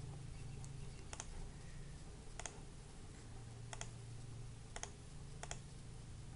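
Faint, scattered clicks of a computer mouse, about five over a few seconds, over a faint low hum.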